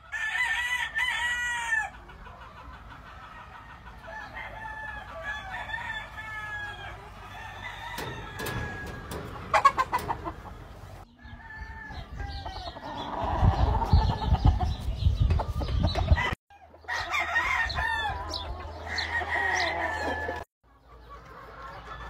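Gamefowl roosters and hens clucking and crowing, in several short clips that cut off abruptly one into the next. A low rumble runs under the calls for a few seconds around the middle.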